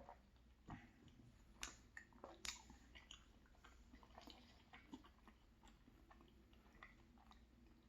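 A person chewing a soft muffin close to the microphone: faint wet mouth clicks and smacks, with the sharpest couple about one and a half and two and a half seconds in.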